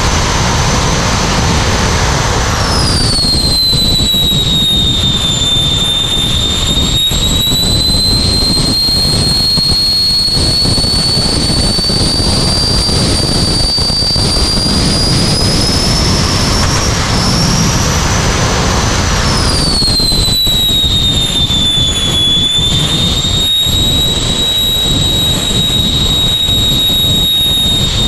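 Jet car's turbine engine heard from inside the cabin: a loud high whine over a steady rush. The whine drops in pitch about two and a half seconds in, climbs slowly for the next quarter-minute, then drops again about twenty seconds in and holds steady.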